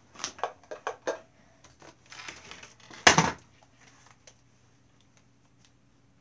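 Clicks, knocks and rustling from a phone being handled, with one loud short burst about three seconds in, over a faint steady hum.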